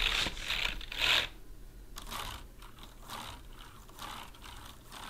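Keys of a computer keyboard clattering as fingers are swept back and forth across them, giving a fast rattle of key clicks. It is loudest in the first second, then drops to fainter scattered clicks.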